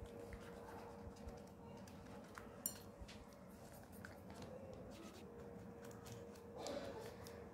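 Faint rustling and light taps of a paintbrush working acrylic paint onto rolled newspaper sticks lying on newspaper, over a steady hum. One sharper click about two and a half seconds in, and a slightly louder rustle near the end.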